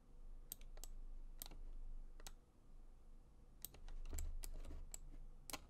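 Irregular clicks of a computer mouse and keyboard, a dozen or so sharp clicks at uneven intervals, with a couple of dull low thumps about four seconds in.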